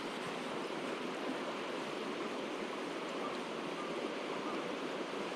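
Mountain stream water rushing, a steady even rush with no breaks.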